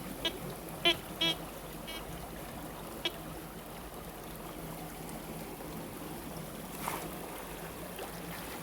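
Steady rush of running stream and waterfall water. In the first three seconds a TX-850 metal detector gives several short beeps as it passes over targets.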